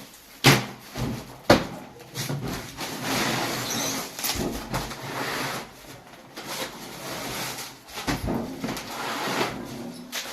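Household goods being packed: two sharp knocks in the first two seconds, then stretches of rasping, scraping noise broken by scattered knocks.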